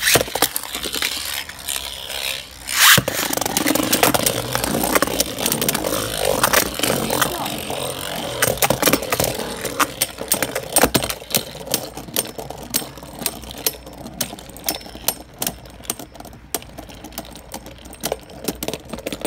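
Two Beyblade Burst spinning tops, Brave Valkyrie and Mirage Fafnir, launched together into a plastic stadium. They whir and scrape as they spin and clack into each other again and again, with one loud hit about three seconds in.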